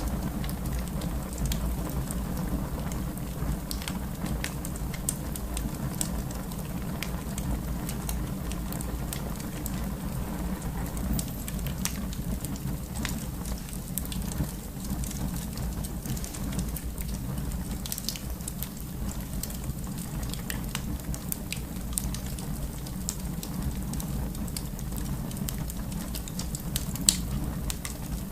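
Wood fire burning in a fireplace: a steady low rumble of flames with frequent sharp crackles and pops scattered throughout, and one louder pop near the end.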